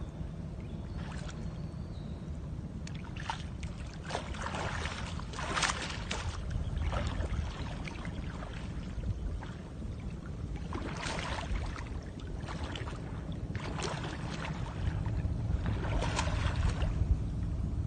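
Sea water sloshing and splashing in irregular swishes over a steady low rumble, the sound of someone diving for shells.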